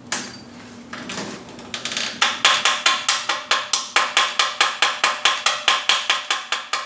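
A hammer striking a fresh stick weld on a stainless steel exhaust pipe: one knock, then from about two seconds in a quick, even run of about four ringing metallic strikes a second, knocking slag off the weld.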